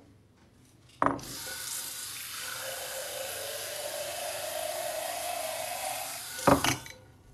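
Water from a kitchen faucet running into a glass beer mug, a steady splashing that rises slightly in pitch as the mug fills. A knock as the flow starts about a second in, and another as it stops near the end.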